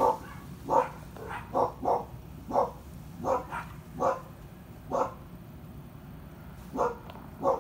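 Animal giving short, sharp calls, about a dozen in a row, mostly half a second to a second apart, with a pause before the last two.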